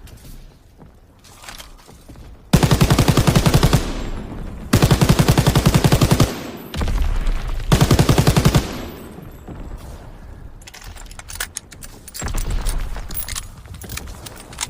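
MG-42 machine gun firing three long bursts of very rapid automatic fire, each lasting one to one and a half seconds. Quieter mechanical clatter and a low rumble come between and after the bursts.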